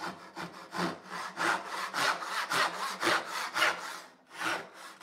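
Rob Cosman joinery crosscut backsaw cutting across walnut by hand, in steady push-and-pull strokes about two a second.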